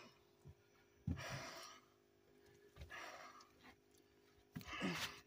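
A man breathing hard, with three heavy exhalations about a second and a half apart, the last ending in a short grunt.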